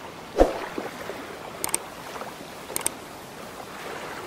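Steady water ambience like lapping or a stream, with a splash-like thump near the start and two sharp clicks about a second apart.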